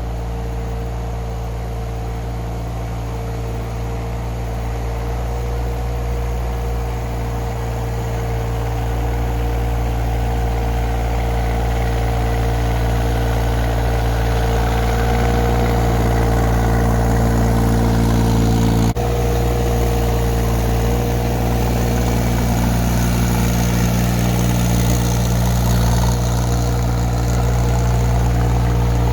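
Mini excavator engine running steadily, slowly growing louder, with a brief sharp click about two-thirds of the way through.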